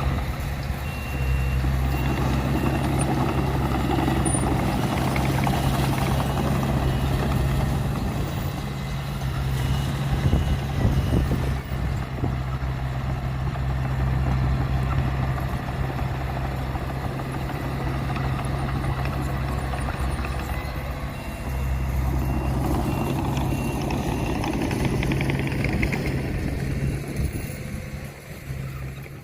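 Heavy diesel engines of earthmoving machinery, a bulldozer working with a dump truck, running steadily with a low hum and a rough rumble. A high back-up alarm beeps for a few seconds near the start and again a little past two-thirds of the way through.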